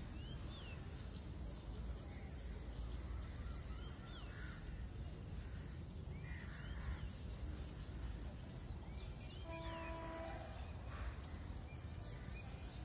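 Quiet outdoor background: a steady low rumbling noise with a few faint bird chirps scattered through it, and about ten seconds in a brief steady pitched tone lasting about a second.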